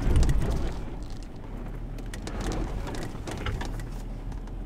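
Land Rover Defender 110 crawling slowly over a rocky track: a low engine rumble under many small crackles and crunches of stones beneath the tyres, loudest in the first second.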